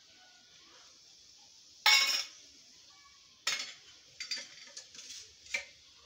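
Metal kitchenware clinking and scraping as ghee is spooned into a non-stick frying pan. The loudest clatter comes about two seconds in, another follows a second and a half later, then a run of lighter clicks.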